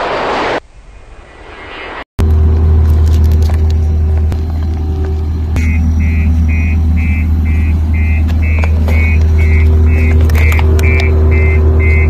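Road roller's diesel engine running with a steady low drone, and from about halfway a repeating beep alarm sounding about twice a second as the machine moves. A brief rush of noise comes at the very start, before a short break.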